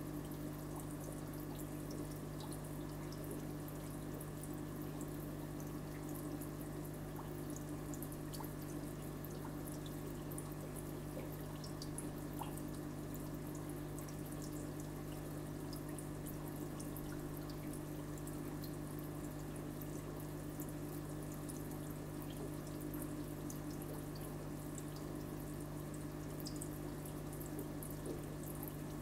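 Aquarium filter running: a steady trickle of water over a constant low hum from its pump motor, with faint scattered ticks.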